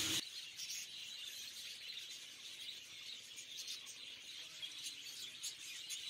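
Faint, scattered short chirps of zebra finches over a steady high hiss.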